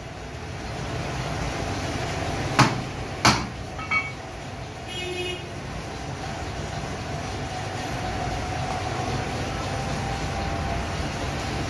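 Butchering at a wooden tree-stump chopping block in a meat shop: two sharp knocks a little over two and three seconds in, and a lighter one soon after, over a steady background din with a faint hum. A short high toot sounds about five seconds in.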